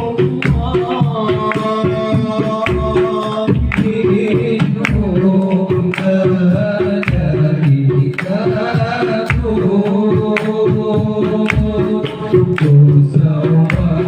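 Sholawat, Islamic devotional singing, with voices carrying a melody over hand-drum percussion: a steady beat of deep drum strokes about once a second, with sharper slaps between them.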